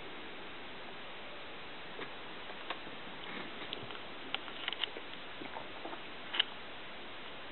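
Steady background hiss with a scattering of small, sharp clicks and ticks from about two seconds in, the sharpest one near the end.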